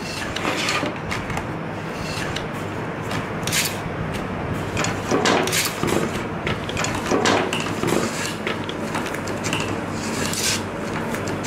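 Metal slide rails being slid and fitted into a wooden CNC axis frame on a tabletop: a string of short scrapes and knocks, several per few seconds, over a steady low hum.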